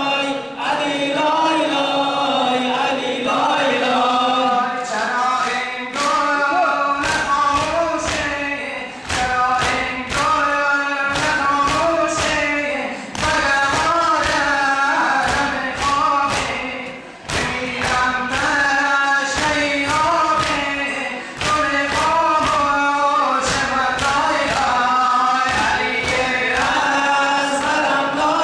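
Male voices chanting a noha lament into a microphone, with a hall of men chanting along, and rhythmic thumps of hands striking chests (matam) in time with the chant, most steady from about six seconds in.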